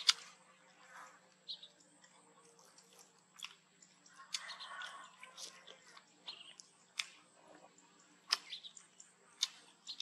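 Faint, scattered clicks and smacks of baby monkeys chewing rice, with a brief scratchy noise about halfway through.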